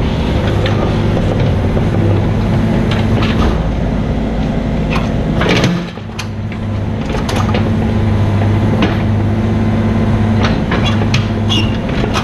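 Mini excavator's diesel engine running steadily, with scattered knocks and scrapes from the machine at work. The engine sound dips briefly about six seconds in, then picks up again.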